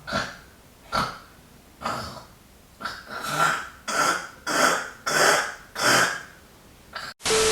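Exaggerated fake snoring: a string of rasping, breathy snores about once a second, coming faster, nearly two a second, from about halfway through. Near the end it cuts to a short, loud burst of even hiss with a steady hum in it.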